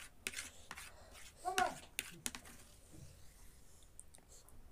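Plastic spoon clicking and scraping against a food tray as the last bits of noodles are scooped up, several sharp clicks in the first half. A short hummed vocal sound comes about a second and a half in.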